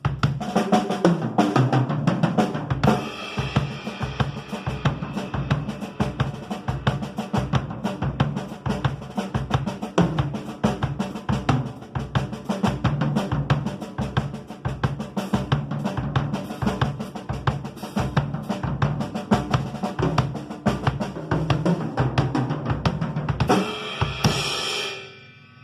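Pearl Export EXL acoustic drum kit played in a fast, busy groove of bass drum, snare, hi-hat and cymbals, closing with a cymbal crash that stops abruptly at the very end.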